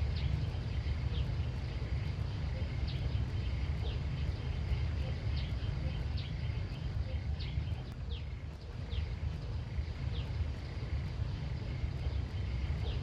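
Outdoor ambience: short, high, falling chirps about once or twice a second over a steady low rumble.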